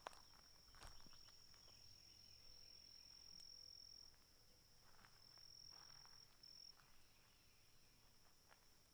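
Faint, steady high-pitched insect trill, breaking off briefly about halfway through and resuming, with a few soft footsteps.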